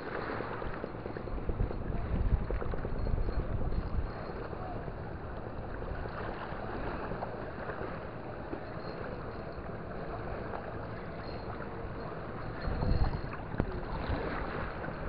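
Wind buffeting the microphone over lapping shallow water, with stronger gusts about two seconds in and again near the end.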